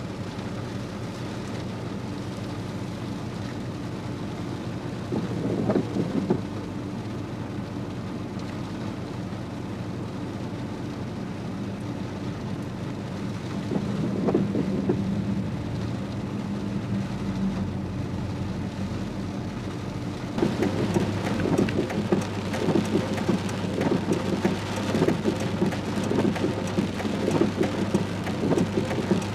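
Hurricane rain falling as a steady wash of noise, with two louder surges about six and fourteen seconds in. About two-thirds of the way through it turns into a dense, heavy patter of drops striking a surface.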